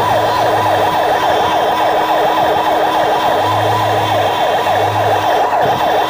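Electronic vehicle siren sounding a fast yelp, its pitch sweeping rapidly up and down several times a second.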